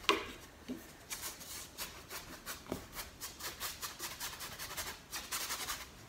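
Flat paintbrush scrubbing wet acrylic paint across a primed stretched canvas, a quick run of short scratchy back-and-forth strokes.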